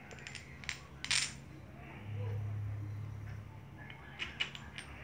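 Small metallic clicks and clinks of a screwdriver and tiny screws as the cap of a motorcycle's brake master cylinder reservoir is screwed back down, in clusters near the start, about a second in and near the end. A low hum sounds for a second or so in the middle.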